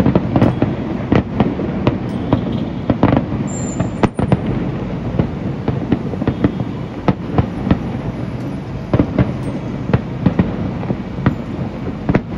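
Aerial firework shells bursting in a dense barrage: a quick, irregular string of sharp bangs over a constant low rumble.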